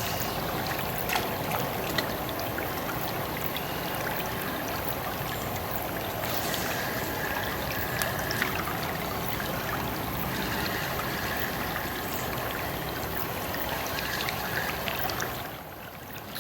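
River water flowing steadily, an even rushing noise, dropping a little just before the end.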